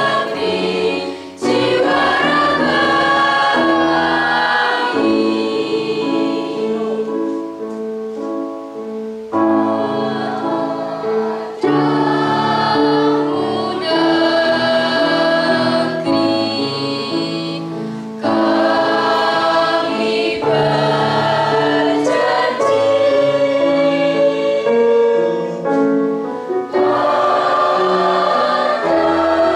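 Mixed school choir of teenage girls and boys singing together, holding long notes in phrases with brief breaks between them.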